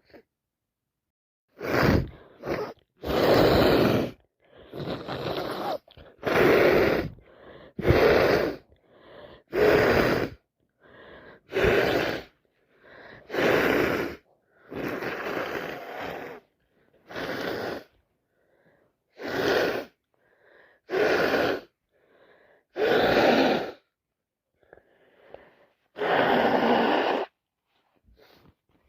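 A person congested with a heavy cold and sinusitis making about fifteen loud, wet nasal bursts in a row, each about a second long with short pauses between. These are the explosive exhalations of repeated sneezing and nose blowing through a blocked nose.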